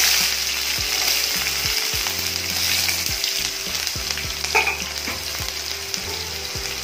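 Chopped onions sizzling in hot ghee with cumin seeds and green chillies in a kadhai, freshly added and being stirred. The sizzle is steady and a little louder at the start.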